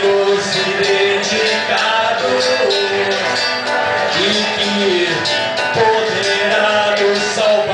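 Live acoustic band playing a song: a man singing over a strummed acoustic guitar and an electric archtop guitar, with a steady beat.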